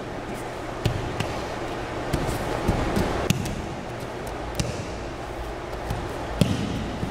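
Scattered thuds and slaps on a training mat, about eight in all: bare feet and a thrown aikido partner's breakfalls. A steady low hum runs underneath.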